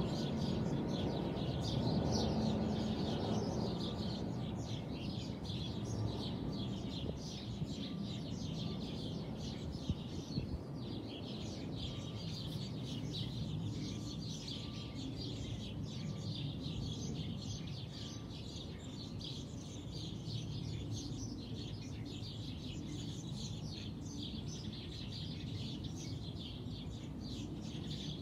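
Many small birds chirping busily and continuously, over a low distant rumble that is heavier in the first few seconds.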